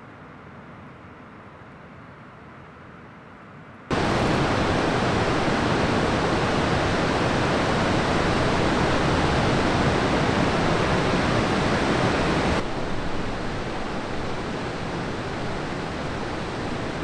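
Ocean surf: a steady rushing roar of breaking waves and whitewater. It starts as a faint low rumble, becomes abruptly much louder about four seconds in, and drops back somewhat about twelve seconds in.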